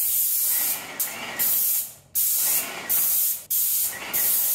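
Paint spray gun hissing in a series of short passes, about five bursts under a second each, with the trigger released in the short gaps between.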